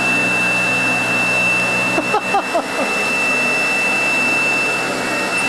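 Vacuum cleaner running steadily, its motor giving a constant high whine over a loud rushing noise as it sucks up small bits of debris from the floor.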